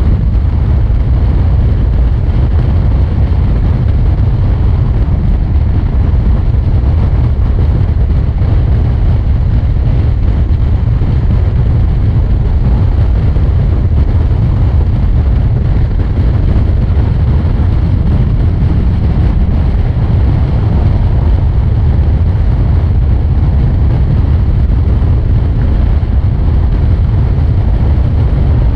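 Honda VFR800F sport-touring motorcycle cruising at freeway speed, about 120 km/h in sixth gear: a loud, steady rush of wind buffeting the microphone, with the V4 engine and road noise running underneath.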